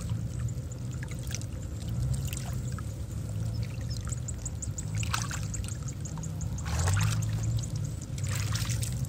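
Hands groping and splashing in shallow muddy paddy water for fish, with several brief splashes, the loudest about five, seven and eight and a half seconds in, and wet steps sloshing through the mud near the end.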